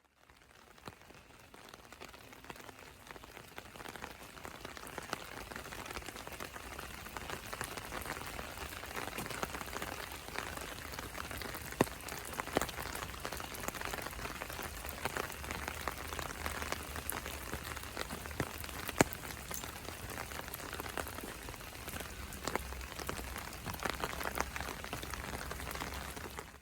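Steady rain falling, with many individual drops ticking close by and a few louder drop strikes. It swells in over the first several seconds and cuts off suddenly at the end.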